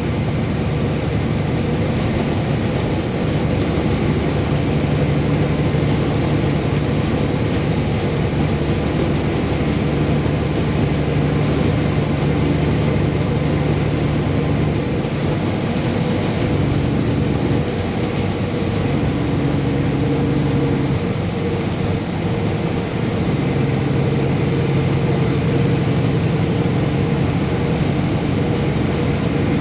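Hotshot truck's diesel engine running steadily at road speed, with road and wind noise. The engine's tone changes for several seconds around the middle, then settles back.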